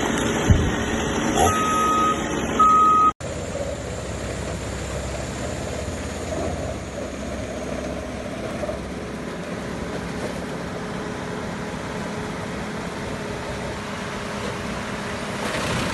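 Heavy machinery engine running steadily. In the first seconds, two short high beeps sound over machine noise, before an abrupt cut.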